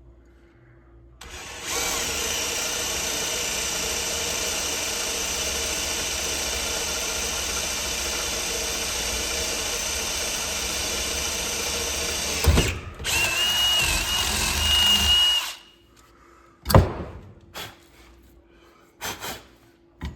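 Electric drill boring holes into pipe for a damper: it runs steadily for about ten seconds, stops with a sharp knock, then runs again for a couple of seconds with a high squeal from the bit before stopping. A few sharp knocks follow near the end.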